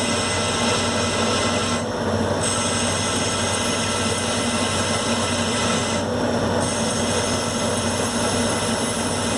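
Omniturn Hardinge CNC lathe rough-turning a 1144 Stressproof steel blank: the machine runs steadily under the hiss of the cutting tool on the steel. The cutting sound drops out briefly about two seconds in and again about six seconds in.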